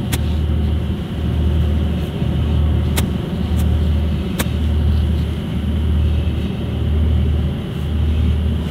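A steady low rumble that swells and dips about once a second, with a few sharp clicks, one about three seconds in and another about four and a half seconds in.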